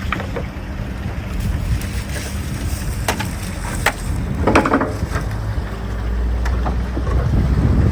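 Fishing boat's engine running with a steady low rumble and wind on the microphone, with scattered knocks and clicks and a short rasp about halfway through.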